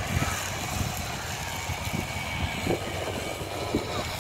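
Distant Class S14 diesel multiple unit train running along the hillside, heard as a steady low rumble under wind buffeting the microphone.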